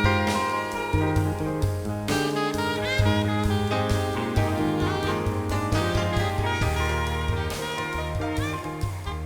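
Instrumental music with sustained pitched notes over a bass line and a steady drum beat.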